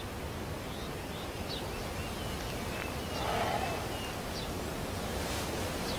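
Steady outdoor background noise with scattered faint, short bird chirps, and a brief muffled swell a little past halfway.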